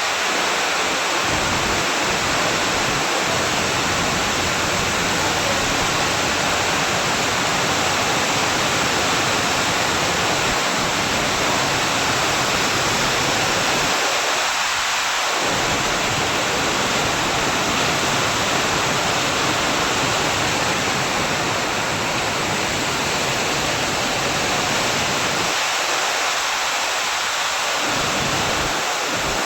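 Heavy rain pouring down, a steady dense hiss with no let-up.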